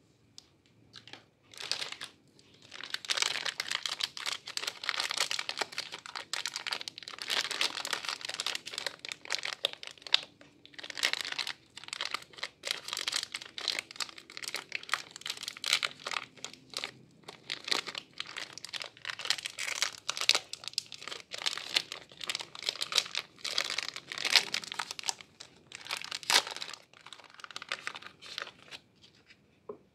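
Plastic soap wrapper crinkling and tearing as hands pull it open and peel it off a bar of soap, in irregular crackles with short pauses, starting a few seconds in.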